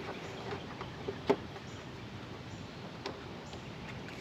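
A few scattered faint clicks and taps of pliers working a spring squeeze clamp on a rubber fuel line at a riding mower's fuel filter, the sharpest a little over a second in.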